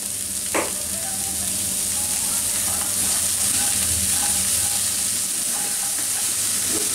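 Finely chopped long beans, carrot and cauliflower sizzling in hot oil in a nonstick pan as they are stir-fried with a slotted spatula, a steady hiss with the scrape of stirring. A single short click about half a second in.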